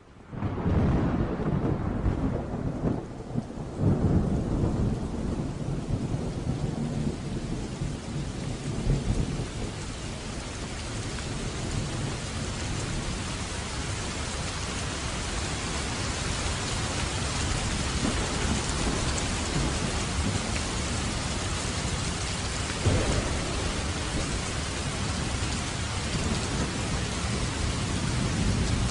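Steady rain falling, fading in at the start, with low rolls of thunder in the first few seconds and again about twenty-three seconds in.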